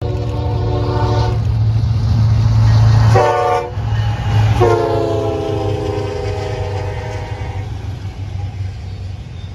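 Diesel freight locomotive sounding its chime air horn: a long blast, a short one, then a long blast that slides down in pitch as the locomotive passes. Under it runs the steady rumble of the diesel engines, which fades near the end.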